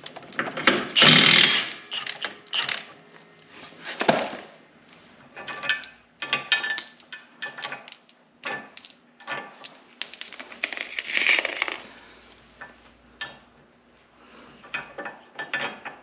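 Impact wrench with a 15/16 socket hammering on a frame bolt of a John Deere 1025R tractor for about the first second and a half, loosening it. Then light metallic clinks and knocks as the loosened bolt and nut are worked out by hand.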